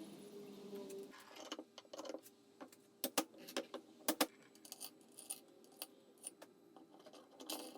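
Scattered light metallic clinks and taps of hardware and tools being handled while parts are fitted to the grinder, a few louder clicks clustered in the middle, over a faint steady hum.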